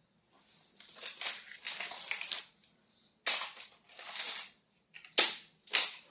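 Plastic toy packaging being handled and crinkled open, with irregular rustling and two short sharp crackles near the end.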